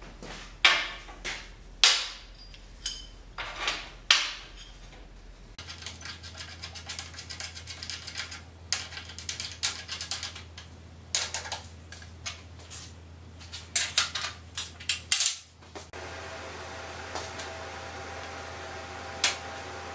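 Metal tools and parts being handled on a perforated steel welding table: a string of sharp clinks and clanks, some ringing briefly. Near the end the clanking gives way to a steady faint hum and a single click.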